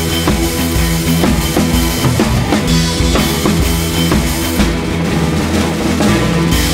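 Background music with a drum kit playing a steady beat over bass and chords.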